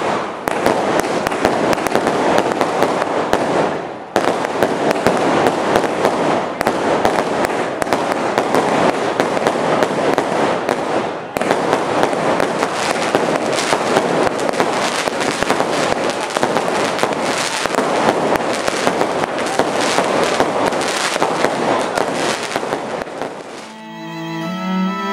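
Fireworks going off in a dense, continuous barrage of crackling and popping. Less than two seconds before the end the fireworks stop and violin music comes in.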